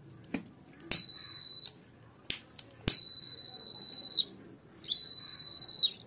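A small piezo buzzer in a home-made BC547 transistor fire-alarm circuit sounds a steady high-pitched beep three times, each under a second and a half long: the alarm is triggering as its photodiode picks up the flame. Sharp clicks come between the beeps, from the lighter being struck.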